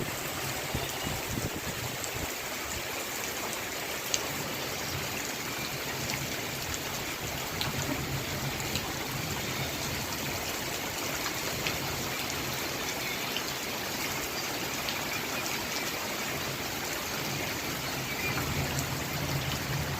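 Heavy rain falling steadily, an even hiss with scattered drops ticking through it, and a faint low hum underneath.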